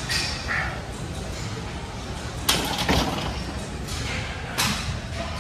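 Gym equipment clanking: three sharp knocks, two close together about two and a half seconds in and one more near the end, over the steady low rumble of a large gym hall.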